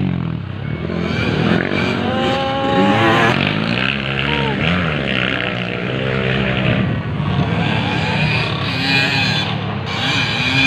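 Dirt bike engines revving hard and easing off as the bikes race round the track, their pitch climbing and dropping again and again, at times more than one bike at once.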